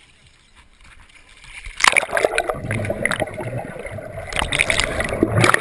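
Water splashing and churning around a waterproofed action camera as it goes under the surface about two seconds in: a sudden loud rush with a low muffled rumble and many small clicks from bubbles. Before that there are only faint pool sounds.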